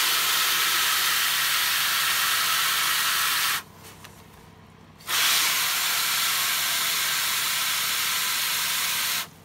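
Garden hose spray nozzle on its shower setting spraying water into an empty black plastic seed tray, a steady hiss. It runs for about three and a half seconds, stops for about a second and a half, then sprays again for about four seconds.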